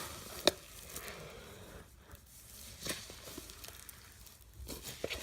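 Foam-bead slime being squeezed and worked in the hands: faint crackling with a few sharp pops from the beads, the loudest about half a second in.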